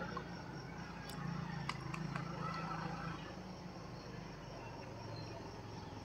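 An insect chirping in a steady, rapid, high-pitched pulse. A low hum swells about a second in and fades after about three seconds, and there are a few faint clicks.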